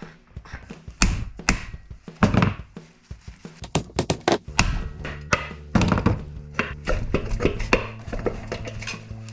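Irregular series of sharp knocks and clatters, several strong ones about a second in and between three and six seconds in, over background music with low held notes.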